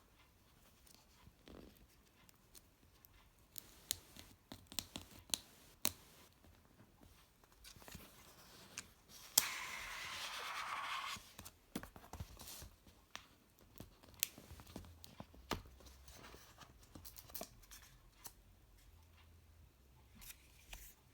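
Product packaging being handled and opened: scattered clicks and taps, with one tearing sound lasting about two seconds near the middle.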